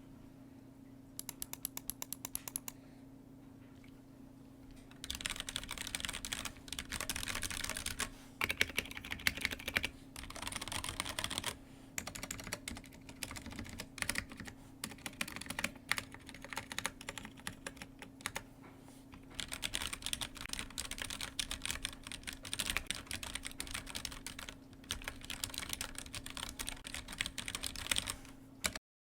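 Typing on a Ducky One 2 Mini mechanical keyboard with Cherry MX Brown switches: a short run of rapid key clicks, a pause, then fast continuous typing with brief gaps that cuts off suddenly near the end. A steady low hum sits underneath.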